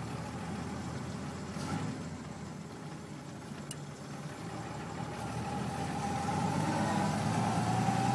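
Willys-Knight sleeve-valve engine running as the car pulls away from a standstill, getting louder over the last few seconds as it picks up speed.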